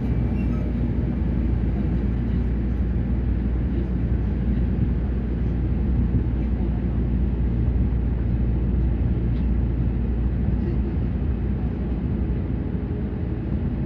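Cabin noise of a Tama Monorail car running along its track: a steady low rumble from its rubber tyres rolling on the concrete beam.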